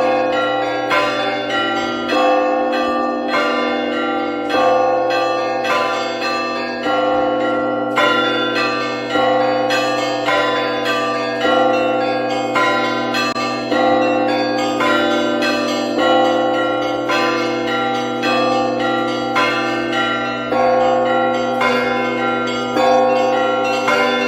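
Russian Orthodox church bells ringing: several bells struck in a quick, repeating rhythm over the lingering ring of the larger bells.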